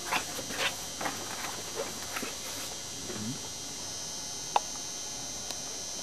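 Paper rustling and scraping as large photographic prints and book pages are handled, in several short strokes over the first couple of seconds, with one sharp click about four and a half seconds in.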